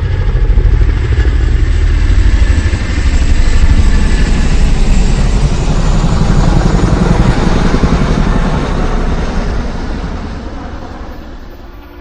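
Motorcycle engine running loud with a fast, low pulsing, swelling in the middle and then fading out over the last few seconds.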